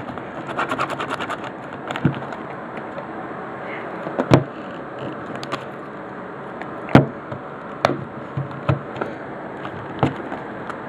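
Handling of a CD-RW pack and its plastic packaging: scattered sharp clicks and knocks, with a quick run of ticks about half a second in.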